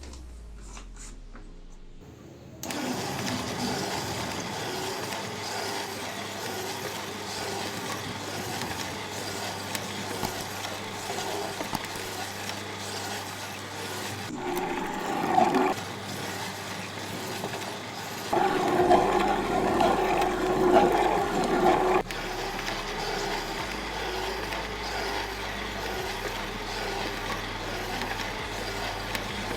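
Homemade miniature blender with a 12-volt DC motor running, starting abruptly about three seconds in and then running steadily, with louder stretches about halfway through and again for a few seconds after that.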